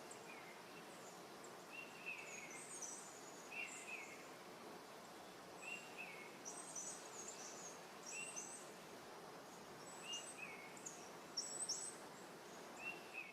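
Faint birdsong over a steady outdoor hiss: short falling call notes repeated every second or two, with higher, quicker chirps between them.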